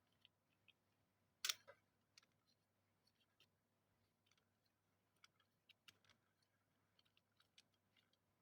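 Faint, scattered clicks and taps of small metal parts being handled: a bearing being lined up in a bicycle pulley wheel with a pressing tool, with one sharper click about a second and a half in.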